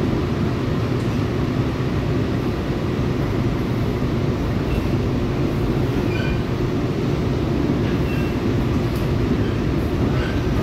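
Steady running rumble heard from inside a moving Seoul Subway Line 4 electric train car (set 471), with a few faint, brief squeaks scattered through it.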